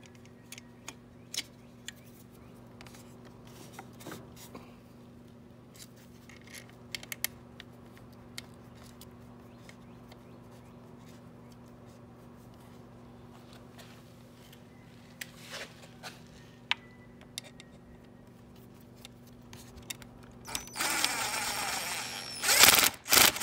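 Scattered light metal clicks and taps of hand tools working a bolt on an outboard engine's housing, over a steady low hum. Near the end, about two seconds of loud rapid ratcheting as a socket wrench on an extension turns the bolt, then a few loud sharp knocks.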